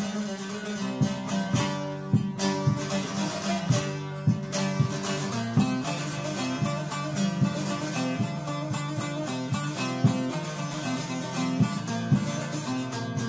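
Instrumental music of a Kurdish folk song: a plucked string instrument playing a steady stream of quickly picked notes over sustained low notes.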